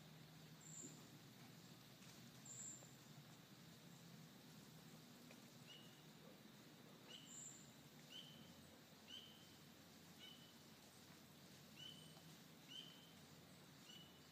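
Near-silent woods with faint short bird chirps repeating about once a second through the second half, and a few thin, higher calls before them.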